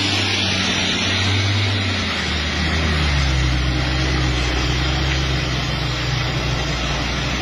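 Intercity bus's diesel engine pulling past and away uphill under a steady hiss. About two seconds in, the engine note drops to a lower pitch and holds there.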